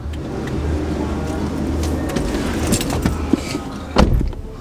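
Steady outside noise coming through an open car door as a person climbs into the passenger seat, then the car door shuts with a single thump about four seconds in, muffling the outside noise.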